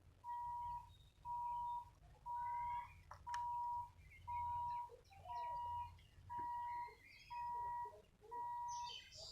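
Railway level-crossing warning buzzer beeping steadily, one high beep about every second. Birds chirp alongside it.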